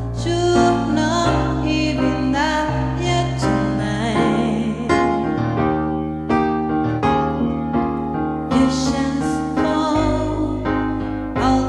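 Music: a song with piano accompaniment and a singing voice holding wavering notes over a sustained bass.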